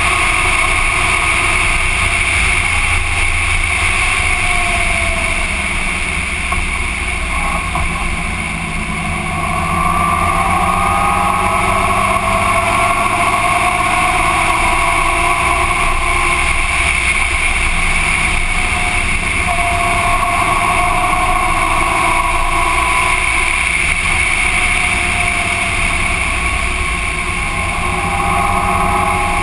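Motorcycle riding at road speed, heard from a camera mounted on the bike. The engine note rises and falls with the throttle over a steady rush of wind and road noise, easing off briefly about a quarter of the way in, then pulling again.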